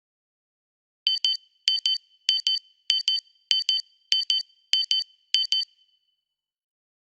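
Electronic beeper sounding eight quick double beeps in a steady rhythm, about one pair every 0.6 seconds, like a digital alarm clock or timer going off. It starts about a second in and stops near the six-second mark.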